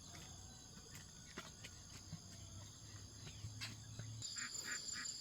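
Faint insect chorus with a steady high-pitched tone that grows louder about four seconds in. A few light clicks sound twice or three times.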